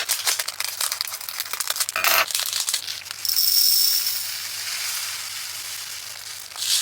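Tiny plastic diamond-painting drills being poured into a small container: a dense rattle of tiny clicks, then from about three seconds in a smoother, steady hiss that slowly fades.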